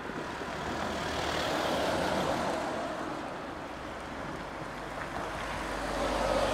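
Street traffic passing: a steady noise of vehicles that swells about two seconds in and again near the end, with a low rumble under the second swell.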